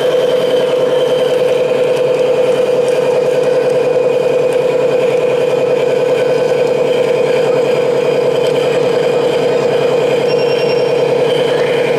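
Large-scale radio-controlled Caterpillar tracked excavator running close by: a loud, steady engine-like drone that holds at one pitch throughout.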